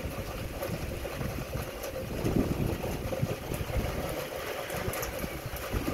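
Storm-force wind gusting and buffeting the microphone in an uneven low rumble that swells and eases, over heavy rain falling.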